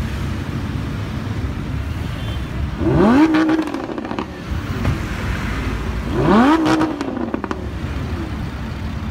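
Lamborghini Huracán's V10 engine revved twice, each rev climbing, holding briefly and falling away, with exhaust crackles after each one.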